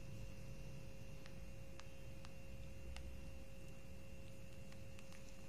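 A steady background hum made of two held pitches, a middle tone and a high whine, over a low rumble, with a few faint scattered clicks.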